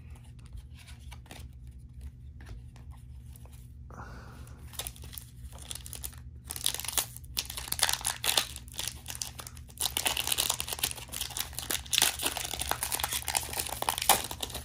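A Panini Prizm basketball card pack's foil wrapper being torn open and crinkled by hand. It starts about four seconds in, and the crinkling grows denser and louder in the second half.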